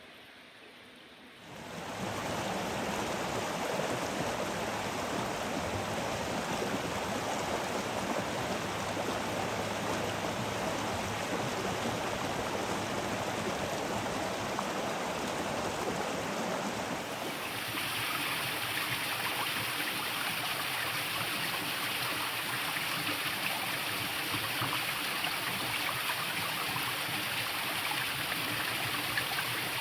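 Water running in a stream, a steady rushing with no other sounds. It gets louder about a second and a half in, and turns brighter and hissier a little past halfway.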